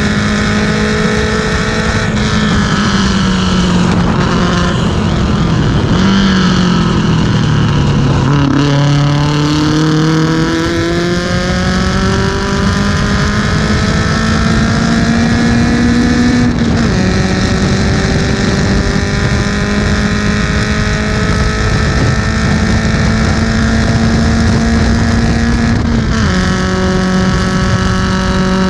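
1970 BMW 2002 race car's four-cylinder engine heard from on board, running hard. The note falls and wavers as the car slows for a corner, then climbs under full acceleration, drops sharply at an upshift about two-thirds of the way through, climbs again, and drops at another upshift near the end.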